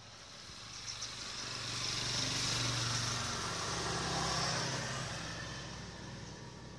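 A motor vehicle passing by: engine hum and rushing noise that swell for a few seconds, then fade away.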